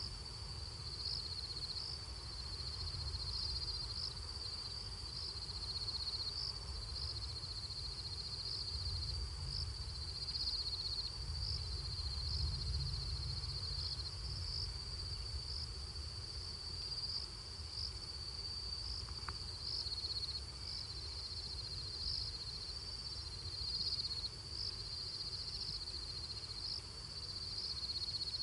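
Crickets chirping at night: a steady high-pitched trill with louder chirps about once a second, over a low rumble.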